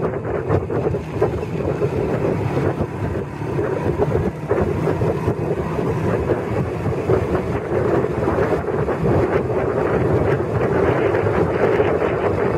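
Wind buffeting the microphone on a moving motorcycle, over a steady engine drone.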